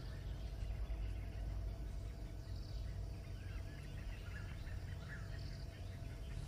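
Faint forest ambience: scattered short chirping calls over a steady low rumble.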